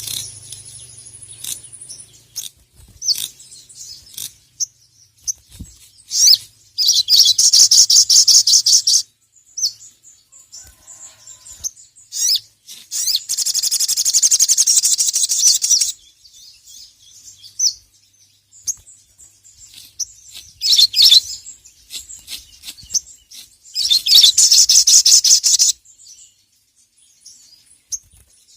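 A sogon (sogok ontong), a sunbird, singing in full voice: three long, high, rapid chattering trills of two to three seconds each, with short sharp chirps between them.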